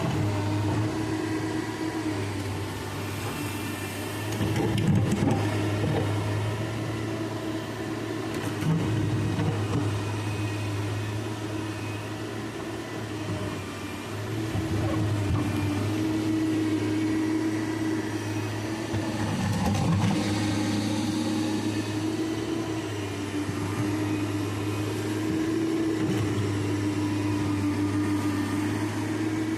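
Excavator's engine running steadily through the digging and trimming work, its hum holding with a tone that swells and fades, and a few short knocks.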